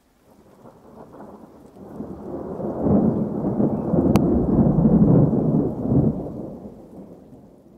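A long, deep rumble that swells over about three seconds, holds, then slowly fades away. A single sharp click sounds about four seconds in.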